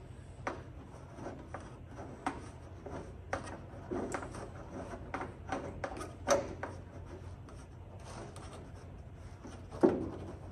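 Electrical wire being pulled through the grommeted lightening holes of an aluminium stabilizer spar: irregular rubbing, scraping and light knocking of the cable and hands against the thin aluminium structure, with one louder knock near the end.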